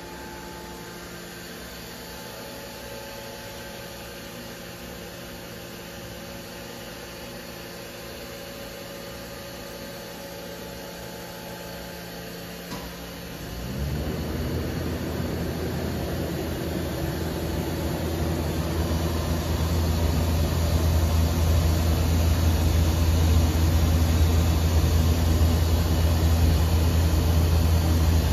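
Powered-up Mazak VCC-5X 20K five-axis machining center humming steadily, with a few fixed tones. About halfway through there is a faint click, then a louder, deeper steady running hum comes on, and it grows louder again a few seconds later.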